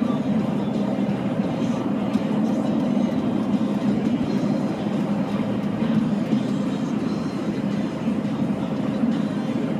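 Steady low rumble of road and tyre noise heard from inside a car cruising at highway speed.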